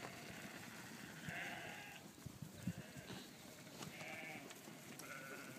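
Flock of White Dorper ewes bleating: a few separate wavering bleats, one about a second in and two more near the end.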